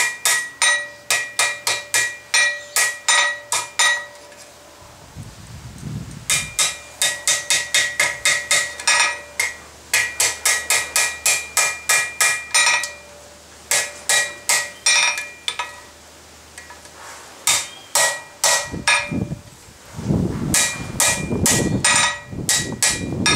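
Hand hammer striking red-hot bolt-jaw tong jaws on an anvil, adjusting them over a piece of stock. The blows ring and come in quick runs of about three or four a second, with short pauses between runs.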